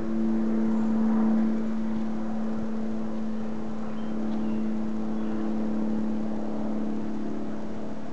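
A steady low mechanical hum made of several constant tones over a soft background noise, as from a machine running somewhere nearby.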